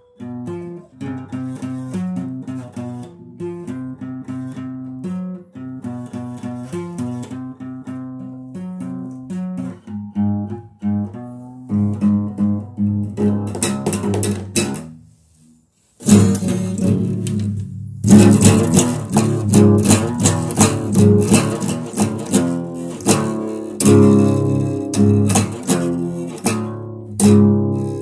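Guitar music: a repeating pattern of picked notes that builds, breaks off almost to silence about fifteen seconds in, then comes back louder and fuller with dense strummed playing.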